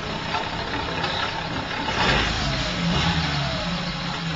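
Maruti Zen VX car engine running, heard close at the tailpipe, with the revs raised briefly about two seconds in and falling away again.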